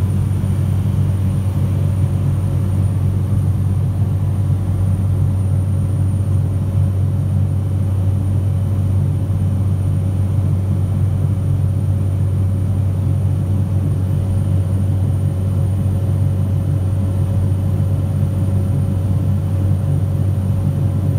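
Steady drone of an aircraft's engine and propeller heard from inside the cabin, a deep even hum with a few faint steady whines above it and no change in pitch or level.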